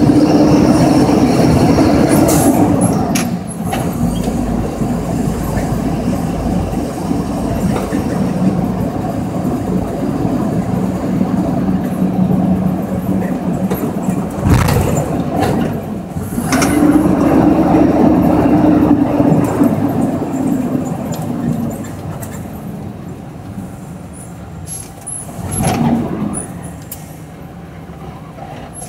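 Mack truck's diesel engine heard from inside the cab while driving, loud, its note swelling and falling away twice as it pulls. A few short sharp knocks cut through, and the engine quietens toward the end.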